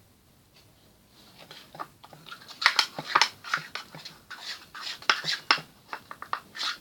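Slime being stirred and worked with a spoon in a bowl as it thickens after more activator is added: an irregular run of sharp wet clicks and squelches, starting about a second and a half in.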